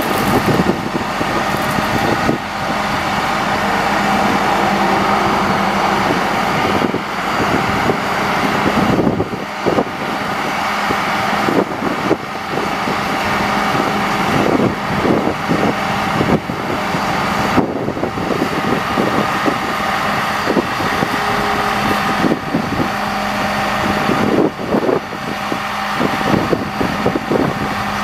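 Caterpillar 3126 diesel engine of a grapple truck running steadily while powering the hydraulic grapple boom, a constant hum with scattered clicks and knocks as the boom swings and folds.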